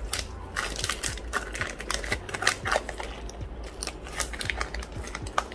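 Plastic vacuum-sealer bag filled with rice crinkling and rustling as it is handled, with many irregular small clicks and crackles.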